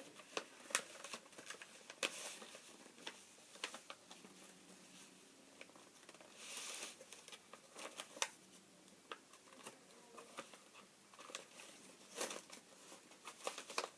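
Sheet of printer paper being folded and creased by hand: irregular crisp crinkles and taps, with a longer rustle about halfway through and a sharp crackle near the end.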